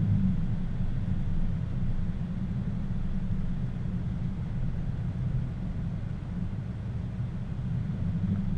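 Low, steady rumble of a car driving on the road, mixed with wind buffeting the microphone that has been filtered down to a low roar.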